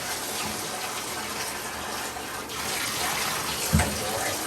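Water running steadily into a bathtub during a puppy bath, with a short thump about three-quarters of the way through.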